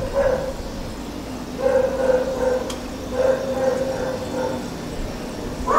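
A dog barking several times in a short series, with drawn-out barks.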